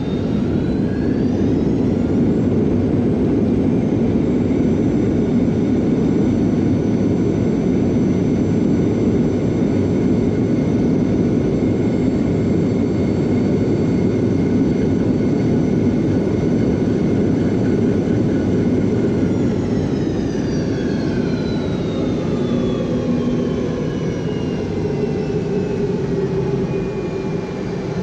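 Boeing 717's rear-mounted Rolls-Royce BR715 turbofan, heard from inside the cabin, spooling up to a loud roar with a rising whine for reverse thrust on the landing rollout. It holds steady, then winds down with a falling whine over the last several seconds as the jet slows.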